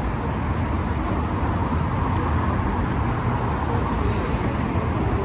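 Steady city street traffic noise: a constant low rumble of passing cars, with no single event standing out.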